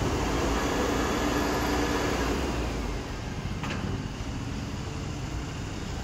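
Heavy machinery running with a steady low rumble and hum, a little quieter from about three seconds in, with one sharp click just past halfway.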